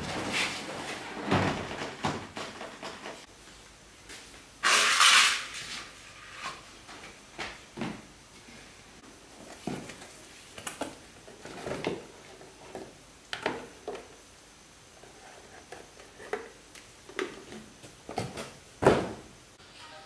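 Scattered clicks, clacks and knocks of tools and machine parts being handled, with a brief hiss about five seconds in and a sharper knock near the end.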